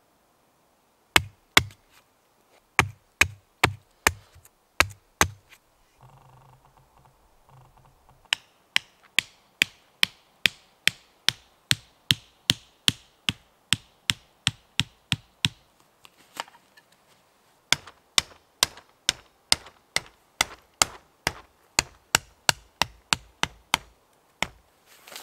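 Wooden tarp stakes being driven into the forest floor with the back of a hatchet: a series of sharp wooden knocks, a few scattered ones at first, then a steady run of about two to three a second, broken by a short pause in the middle.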